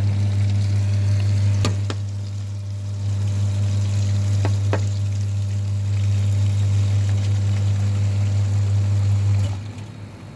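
Milk vending machine's pump running with a loud, steady hum while milk pours into a bottle, with a few light clicks; it cuts off suddenly near the end as the dispensing finishes.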